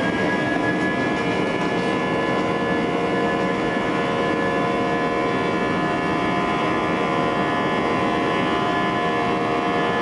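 Airbus A320's jet engines at takeoff power, heard from inside the cabin during the takeoff roll: a steady whine of several tones over an even roar.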